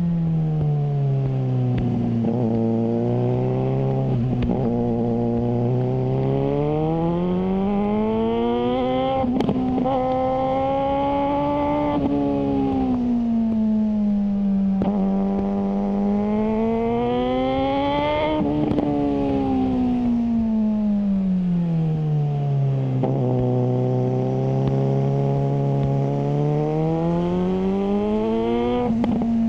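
Suzuki GSR600's inline-four engine running through a GPR Ghost aftermarket exhaust, its pitch falling and rising in long smooth sweeps, several times over.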